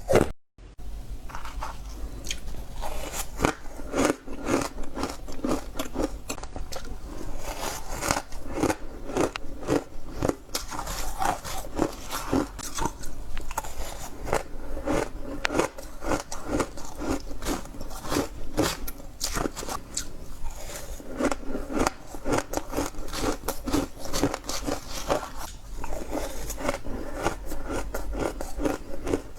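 Frozen green matcha ice being bitten and crunched, a fast, continuous run of brittle crunches, several a second, broken by a brief silent cut just after the start.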